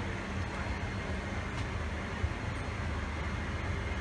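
Steady low rumble and hiss of a moving vehicle's interior, with a steady hum that fades out about two seconds in and a single short knock just past halfway.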